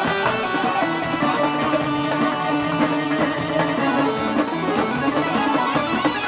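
A wedding band plays an instrumental passage of Sandžak-style Balkan folk music: a melody line over a steady beat, with no singing.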